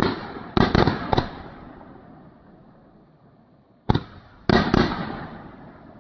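Phantom Fireworks Pint Size Powerhouse repeater cake firing: sharp shots in two clusters, about four in the first second and three more near four seconds in, each trailing off in an echo.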